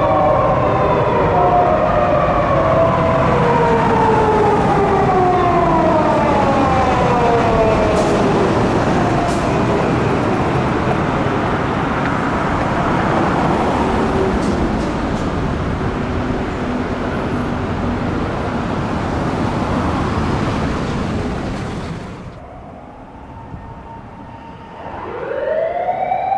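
Japanese police car siren winding down in pitch over the first several seconds under a loud, steady rushing noise. The noise cuts off suddenly about 22 seconds in, and near the end a siren starts again, rising in pitch.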